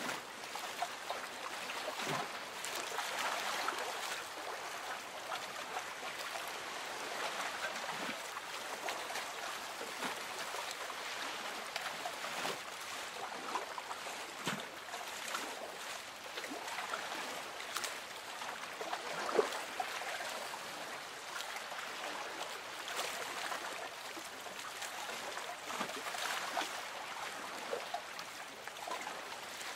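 Lake water lapping gently against a small boat's hull: a steady soft wash with small splashes now and then.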